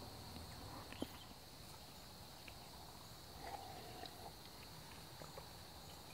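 Quiet outdoor ambience: a faint, steady high-pitched hiss with a few soft ticks, and one sharper click about a second in.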